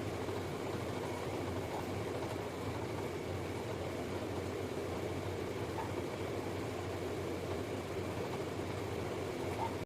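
Steady low mechanical hum, even throughout, with a few faint ticks.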